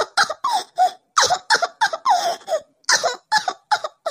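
A girl's voice sobbing in short, broken gasps, about four or five a second.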